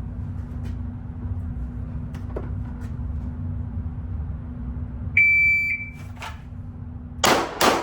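PACT shot timer gives one high beep, then about two seconds later a pistol fires two shots about a third of a second apart: a timed draw with a first shot and a follow-up split. A steady low hum sits under it all.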